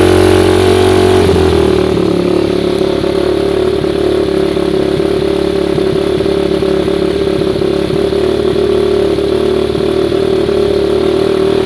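Freshly rebuilt 2009 Yamaha YFZ450's carbureted single-cylinder four-stroke engine, breathing through a Dutchman aftermarket exhaust, idling steadily just after starting. It is being run for a break-in heat cycle, and its deep low note drops away about two seconds in.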